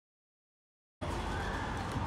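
Dead silence, then outdoor background noise cuts in abruptly about a second in: a steady low rumble with hiss.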